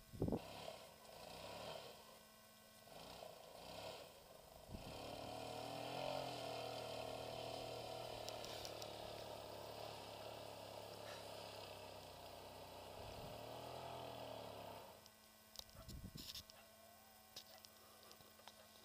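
A homemade quad bike's engine running in the distance, steady for about ten seconds with its pitch rising and falling slightly, then stopping about 15 seconds in. Wind buffets the microphone at the start.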